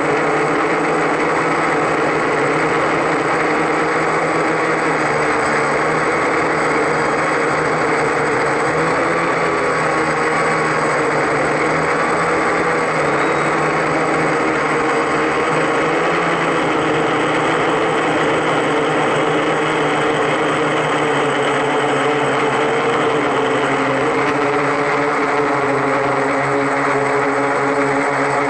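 Octocopter's eight electric motors and propellers whirring steadily in flight, a dense hum of several close pitches that shift slightly as it manoeuvres.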